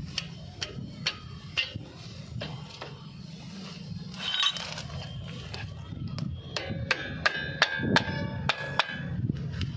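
Sharp metal taps and clinks on a rear drum brake assembly as the shoes and return springs are fitted. The strikes come closer together in the second half, several leaving a short metallic ring.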